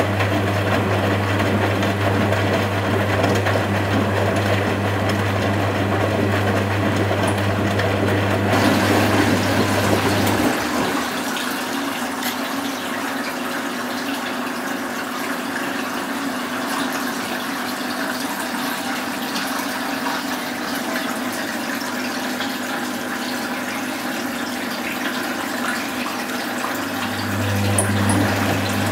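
Constructa Contura washing machine pumping and running water: a steady low hum, like the drain pump, cuts out about ten seconds in and starts again near the end, while water keeps rushing and sloshing in the machine.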